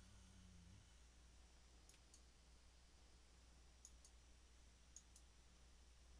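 Faint computer mouse clicks in three pairs, each pair about a quarter second apart, over near silence with a steady low hum.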